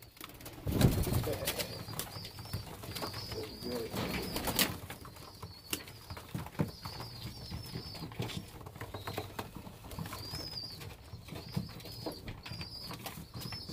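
A loft full of homing pigeons: a low coo about a second in, then scattered wing flaps and the clicks of birds shuffling and pecking. Thin high peeping calls repeat throughout.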